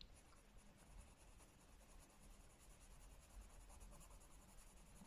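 Very faint scratching of a watercolour pencil, used dry, shading on sketchbook paper, close to silence.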